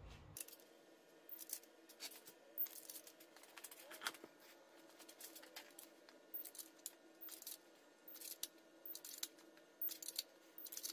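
Faint, irregular clicking of a ratcheting torque wrench turning the ARP head-stud nuts on a Honda H22 cylinder head, with short runs of clicks as each nut is drawn down toward 60 ft-lb.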